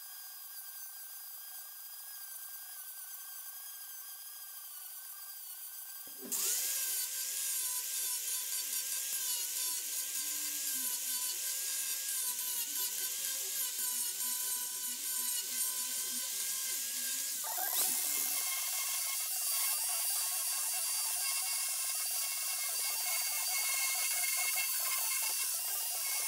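Angle grinder fitted with a sanding disc, running and sanding the edge of a wooden slab with a steady motor whine over a gritty hiss. It cuts in louder about six seconds in. About two-thirds of the way through the sound changes abruptly, and near the end a belt sander is sanding the same edge.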